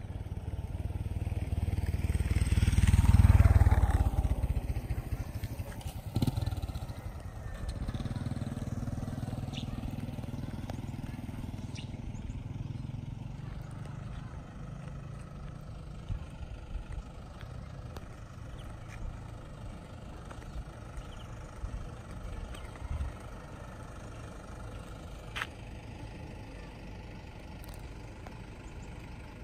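A motor vehicle passes close by: its engine grows louder to a peak about three seconds in, then drops in pitch and fades away. A lower engine hum carries on more faintly for several seconds before dying down to quiet outdoor ambience.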